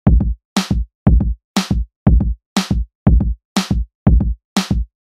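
Background music: an electronic drum-machine beat, a low kick and a sharper, brighter hit alternating about twice a second, with dead silence between the hits.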